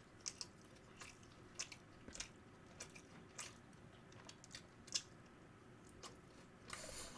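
Quiet close-up chewing and biting of sauced fried chicken, with scattered small crunches and wet mouth clicks at irregular intervals. A short hiss near the end.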